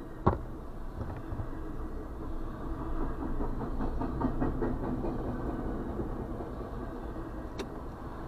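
Norfolk Southern freight train's intermodal container cars rolling past over a low rumble, wheels clicking over the rail joints in a quick rhythm that is loudest midway. It is heard from inside a vehicle's cabin. One sharp knock comes just after the start.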